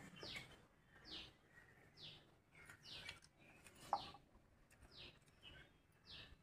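A bird calling faintly: a short, high, falling note repeated about once a second, with one sharp click about four seconds in.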